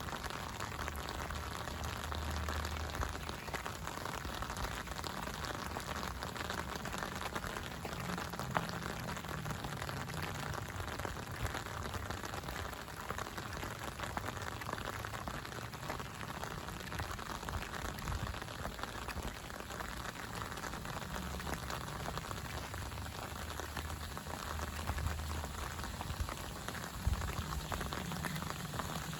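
Steady rain falling, an even hiss dotted with many small drop impacts, with a low rumble that swells and fades at times.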